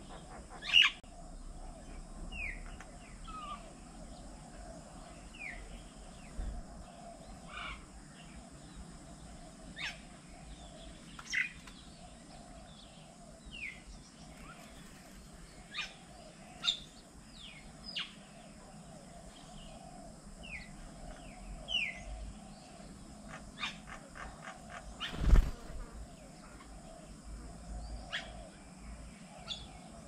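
Birds chirping and calling around a garden bird table: many short chirps, several of them falling in pitch, scattered throughout over steady outdoor background. One loud thump near the end.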